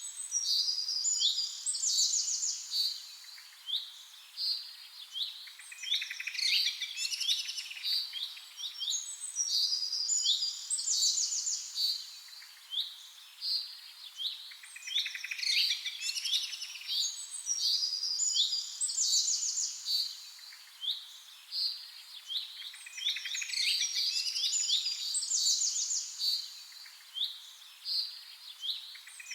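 A songbird singing long, rapid, twittering phrases full of quick trills and high sweeping notes, repeated in bursts every several seconds.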